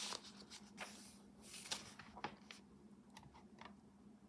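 Faint paper rustling and scraping as a paper card slides into a paper tuck pocket on a journal page, with a few light ticks of fingers on the paper.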